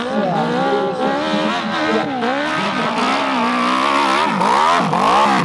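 Hill-climb motorcycle engine revving hard under load up a steep dirt slope, the revs rising and falling constantly as the throttle is worked, climbing highest near the end with a few sharp dips and recoveries.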